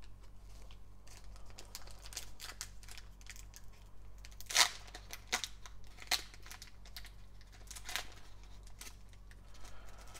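Foil wrapper of a trading-card pack crinkling and crackling as gloved hands handle it and pull at its sealed end, a string of sharp crackles with the sharpest about four and a half seconds in.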